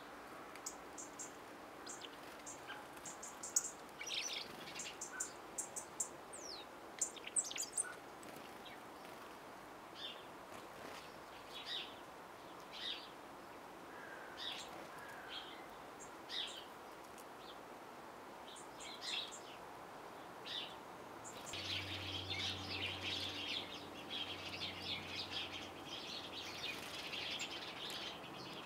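Small garden birds calling: short, high chirps scattered through, then a denser run of chattering from about two-thirds of the way in.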